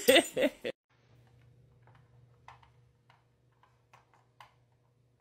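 A brief loud voice cuts off abruptly at the very start. Then a few faint, irregular light clicks and taps as a small dog noses a plastic treat puzzle toy on a hard floor, over a low steady hum.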